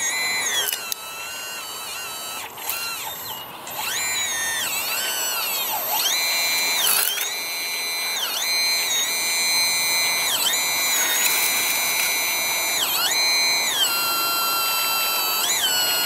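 Radio-controlled Hitachi 210 model excavator's electric motors whining, the pitch rising and dropping back again and again as the arm digs and the upper body swings.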